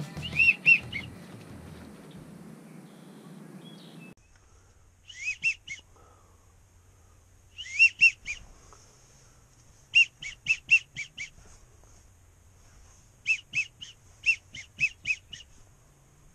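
American wigeon whistling: short, high, rising whistled notes in quick runs of three to six, repeated every few seconds. Guitar music fades out under the first notes, about four seconds in.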